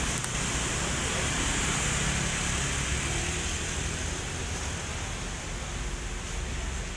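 Steady street traffic noise, motorbikes and cars passing close, under an even hiss, easing a little in the second half.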